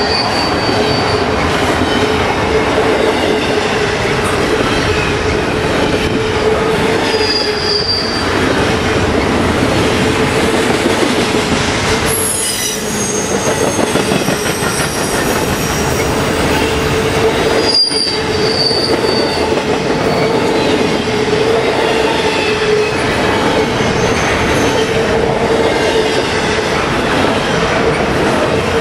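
Double-stack intermodal container well cars of a long freight train rolling past at speed: a steady, loud rumble and clatter of steel wheels on rail, with a constant droning tone and a few short high-pitched wheel squeals.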